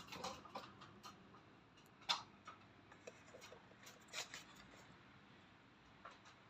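Faint handling noise: a few scattered light clicks and scrapes, the sharpest about two seconds in and another about four seconds in.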